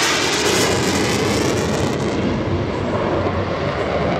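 Mikoyan MiG-29 fighter's twin RD-33 jet engines roaring on afterburner during a display pass. The roar turns duller about halfway through as the jet pulls away.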